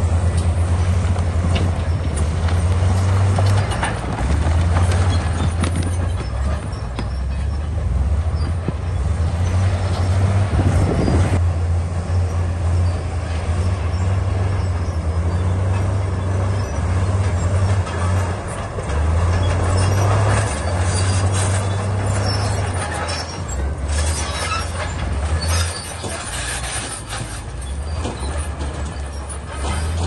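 Komatsu D68E bulldozer working: its diesel engine runs with a deep, steady note that shifts as the load changes, under a continuous clatter of tracks and pushed rock, with sharper clattering a few seconds before the end.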